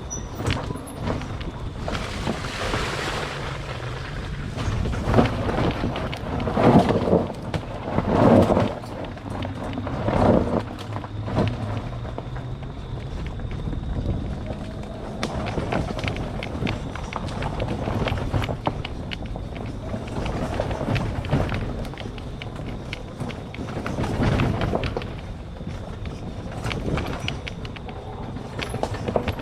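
Christini four-wheel-drive electric ATV with hub motors ridden over rough woodland trail: no engine, just tyres and chassis crunching, knocking and rattling over the ground in uneven surges, with a faint steady high whine underneath.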